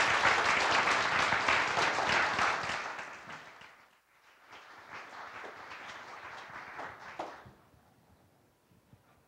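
Audience applauding. It dies away about four seconds in, then a quieter round of clapping follows for about three seconds before it stops.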